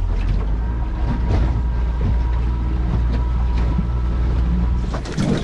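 Yamaha outboard motor running steadily, driving a small aluminium runabout along, with a low drone, a thin steady whine and the rush of wind and water.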